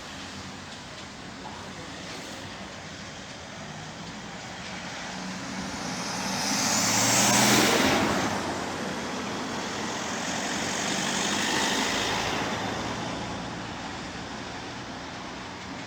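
A vehicle passing by: its noise builds to a peak about halfway through, eases, swells again briefly, then fades away.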